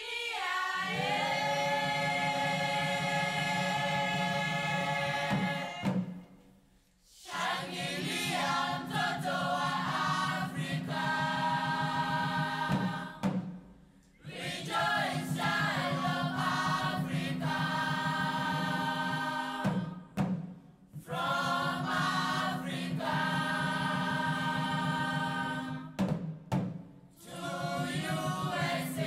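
Background music: a choir singing in long held phrases over a steady low drone, with brief breaks between phrases about every six or seven seconds.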